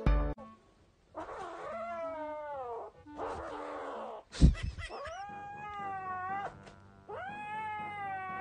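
Kitten yowling in four long drawn-out calls. The first two fall in pitch, and the last two rise and then hold steady. A single sharp knock comes about halfway through.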